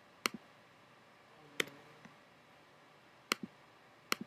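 Computer mouse buttons clicking four times, a second or more apart, as menu items and folders are selected; several clicks are followed at once by a softer release click.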